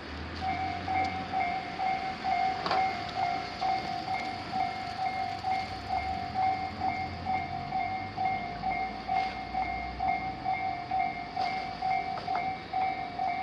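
Japanese railroad crossing warning bell starting about half a second in, its electronic ding repeating in a fast even rhythm. A low rumble runs beneath it and fades about ten seconds in.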